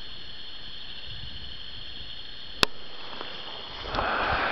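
Night insects calling in a steady, even high-pitched chorus, with one sharp click about two and a half seconds in and a rustling noise starting near the end.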